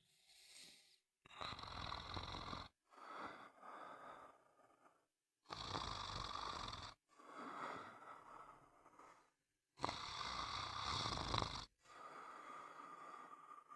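Someone snoring in a steady rhythm. A louder snore comes about every four seconds, three times, and each is followed by a softer, trailing breath, with short silences between.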